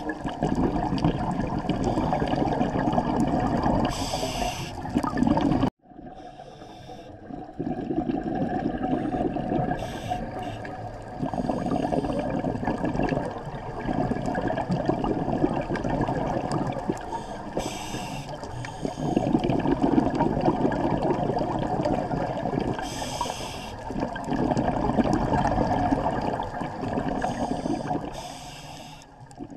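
Underwater sound of a scuba diver breathing through a regulator: long rushes of exhaled bubbles gurgling, with a short hiss about every six seconds. The sound drops out sharply for a moment about six seconds in.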